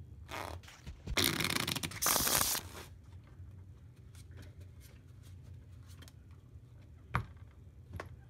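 A deck of playing cards being shuffled, two loud shuffles about a second in, followed by soft card flicks and a couple of sharp taps near the end as cards are dealt onto a cloth-covered table.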